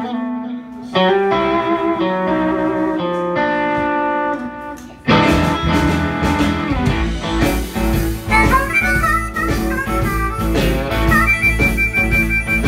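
Live blues band led by an amplified harmonica: sparse opening phrases, then drums, bass and electric guitars come in together about five seconds in. Near the end the harmonica holds one long high note over the band.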